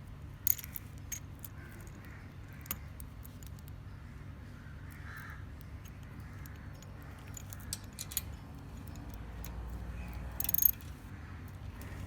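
Irregular metallic clicks and clinks of a 13 mm socket on a steel cap nut as it is fitted and tightened onto an exhaust manifold stud. A quick cluster of sharper clicks comes near the end.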